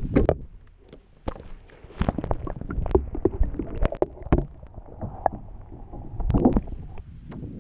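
Muffled water sloshing and gurgling as a camera is plunged under a lake's surface, with irregular sharp knocks and clicks through the middle of it.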